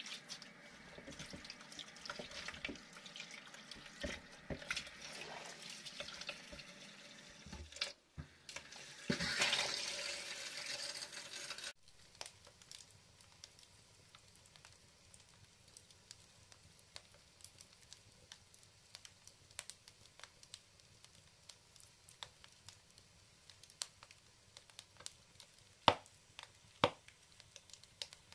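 Tap water running over potatoes in a bowl in a stainless sink while hands scrub them, with a louder rush of water just before the cut. About twelve seconds in the sound changes abruptly to logs burning in a brick wood stove's firebox: faint crackling with scattered small pops and two sharp pops near the end.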